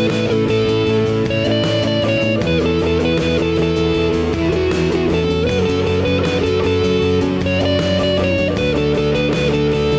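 Praise band playing an instrumental passage between sung lines, led by guitars, with steady strummed chords over held notes and bass.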